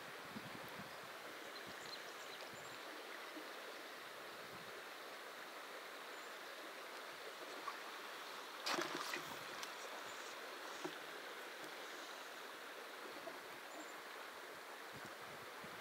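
Steady rush of a shallow river's current flowing over rocks. About halfway through there is a brief, louder scuffing noise.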